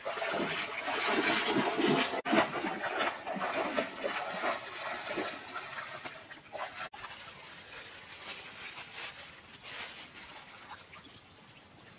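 Water splashing in irregular surges as someone wades through a shallow stream, loudest in the first half. After that comes a quieter, steady sound of the stream running over stones.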